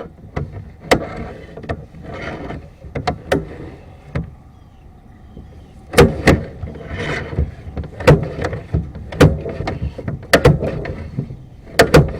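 Sewer inspection camera's push cable being handled at the drain cleanout: irregular sharp knocks and clicks with rubbing and scraping in between, coming thicker and louder in the second half.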